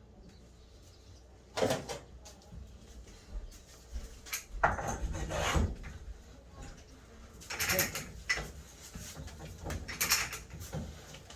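Hand work on steel pipe with a pipe-threading tool: irregular scraping and clunking strokes in four bursts, the longest about a second and a half.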